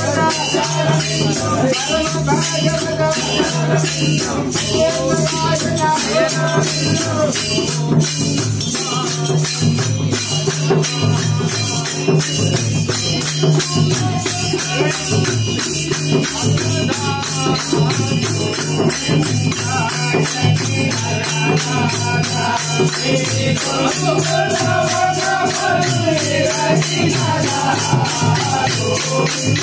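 Men singing a bhajan together to a rope-laced two-headed barrel drum, with small hand cymbals clashing in a fast, steady rhythm.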